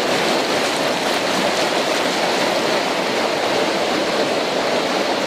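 Whitewater of a mountain river rapid, rushing steadily.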